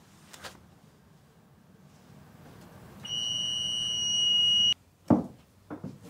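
Door warning beep of a public-transport vehicle: one steady high beep lasting under two seconds, growing louder partway through and cutting off suddenly. A sharp knock follows, with a few lighter knocks after it.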